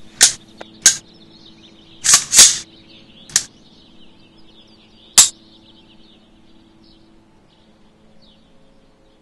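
Sharp metallic clicks and snaps from an Anderson Manufacturing AR-15 rifle being put back together and function-checked. There are about six in the first five seconds, two of them close together about two seconds in and the last at about five seconds.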